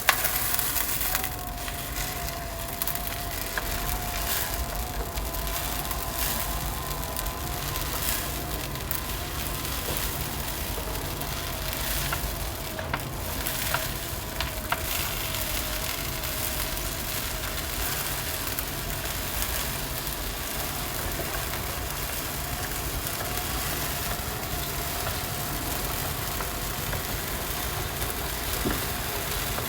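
Leo's Loo automatic self-cleaning litter box running a manual cleaning cycle, its drum motor turning the globe with a steady, slightly wavering whine and a few brief clicks or rattles midway.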